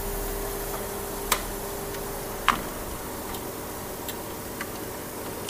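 Small hand tools clicking and tapping on a circuit board, with two sharper clicks, one about a second in and one at two and a half seconds, then a few fainter ticks, over a steady low hum.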